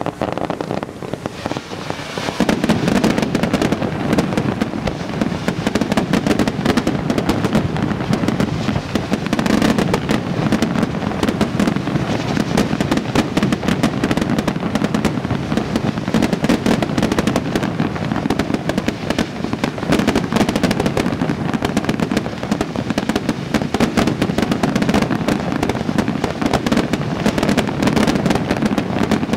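Aerial firework shells bursting in a rapid, continuous barrage of bangs and crackling, growing denser about two seconds in.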